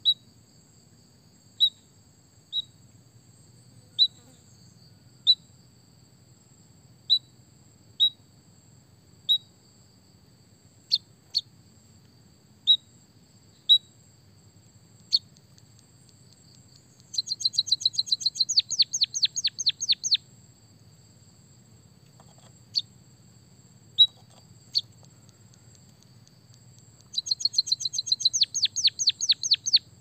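White-headed munia calling: short sharp single chirps spaced about a second apart, and twice a quick run of rapid notes falling in pitch, each lasting about three seconds.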